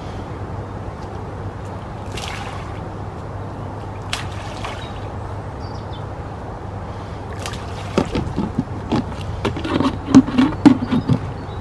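Handfuls of bait thrown into the shallow margin of a lake, pattering and splashing on the water. About eight seconds in come a cluster of sharper knocks and rustles, the loudest part.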